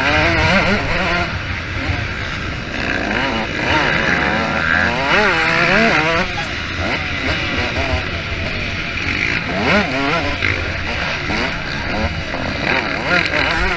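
Motocross motorcycle engines revving hard, rising and falling in pitch again and again as the bikes race, with several engines heard at once.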